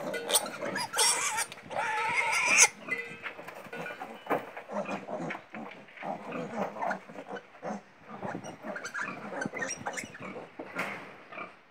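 Piglet squealing loudly for about two and a half seconds while held by the jaw for an iron injection, then quieter, scattered noises.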